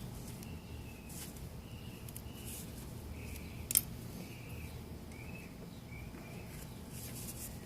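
A small bird chirping repeatedly in the background with short, high notes, over a low steady hum. A single sharp click about four seconds in is the loudest sound.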